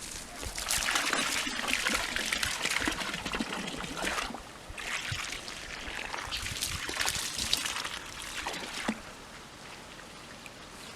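Water pouring and splashing in two spells, a short break between them, stopping abruptly near the end.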